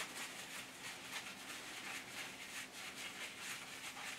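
Faint rustling of tissue paper being handled and folded in the fingers, over a low steady hum.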